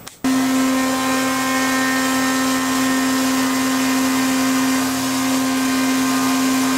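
Tormach PCNC 1100 CNC mill face-milling a 6061 aluminium plate under flood coolant: a loud, steady whine from the spindle and cutter over a broad hiss, starting abruptly just after the start.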